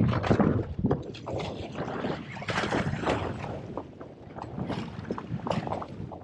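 Choppy sea slapping and splashing against the side of a drifting boat, in uneven strokes, with wind buffeting the microphone.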